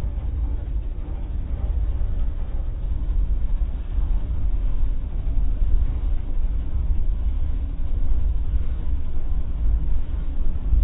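Automatic car wash machinery running with a steady low rumble, getting a little louder about two seconds in.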